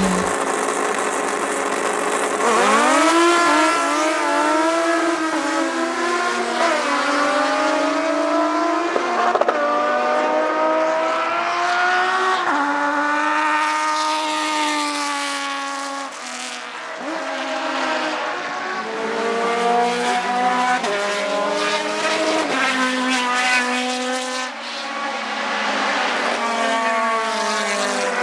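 Racing car engine at high revs, its pitch rising and falling over and over as it accelerates, shifts and lifts, with brief drops in level about sixteen and twenty-four seconds in.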